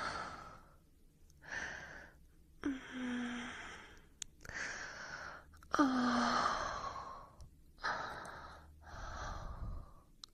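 A woman's breathy sighs and gasps, about seven in a row, each lasting around a second; a few start with a short voiced 'ah'.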